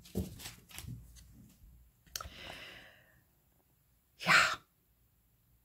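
Cards being handled and drawn from a tarot deck: soft clicks and a papery rustle. About four seconds in comes one short, loud burst of breath.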